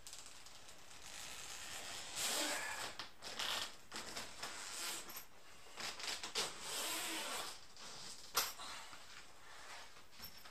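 A large cardboard box being opened by hand: a run of rasping scrapes and rustles as the packaging is pulled and slid apart, with one sharp click about eight and a half seconds in.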